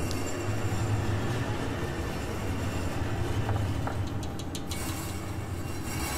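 Balls rolling across the strings of an open grand piano: a continuous low rumble from the buzzing strings, with a few light clicks about two-thirds through.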